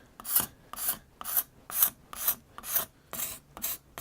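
Steel card scraper scraping lengthwise along a rough old wooden crosscut saw handle, in regular rasping strokes of about two a second.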